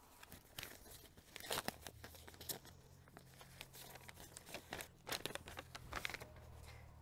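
Faint paper tearing and crinkling, in several short spells, as an envelope is torn open by hand and the sheets inside are unfolded.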